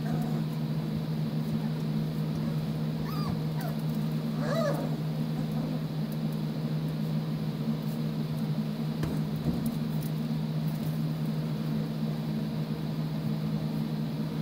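Four-week-old puppies giving a few faint, short squeaky whines, about three and four and a half seconds in, over a steady low hum.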